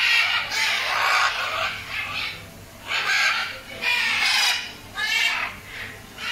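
A flock of macaws squawking: a run of harsh, raspy calls, about one a second.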